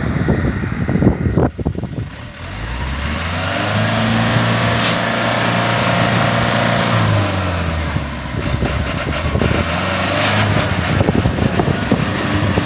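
Hino 4x4 truck's diesel engine revving up and holding under load, then easing off about halfway through. Knocks and rattles come before it and again in the second half.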